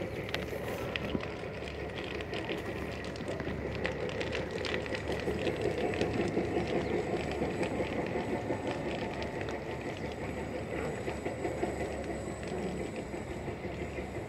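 Dry bushes burning in a bush fire: a steady rush of flames with many sharp crackles and pops throughout.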